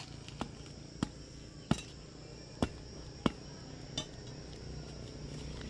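Six sharp, irregular knocks of a long-handled hoe chopping into gravelly ground while weeding, the middle strikes the loudest. Insects drone steadily behind them.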